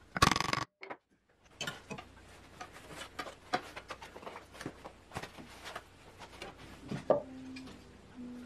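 A short, loud knock right at the start as a pulley is tapped down onto an electric motor's shaft with a wooden handle, a tight fit. Then, after a brief silence, light scattered clicks and taps of wooden pieces and bar clamps being handled on a workbench.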